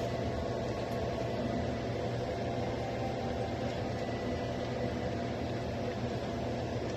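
Range hood exhaust fan running over the stove: a constant hum over an even rush of air.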